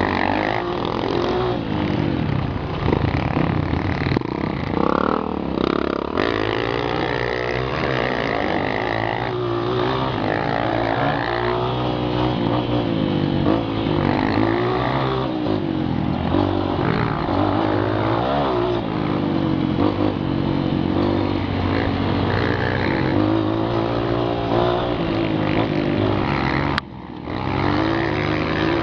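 Dirt bike engines running on a trail ride, the revs rising and falling constantly with the throttle. The sound dips for a moment near the end.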